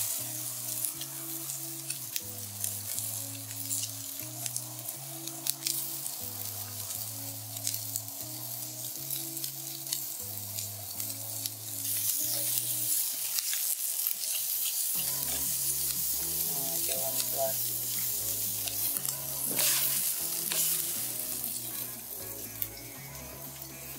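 Salted wagyu picanha steaks sizzling on a hot grill grate, a steady crackling hiss that swells about halfway through. Soft background music with a low, stepping bass line plays underneath.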